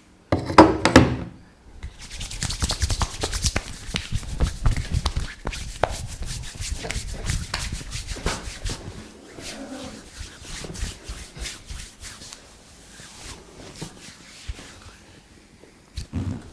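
A barber's hands rubbing and striking skin in fast, dense massage strokes, thinning out and growing quieter after about nine seconds. A brief loud sound comes about half a second in.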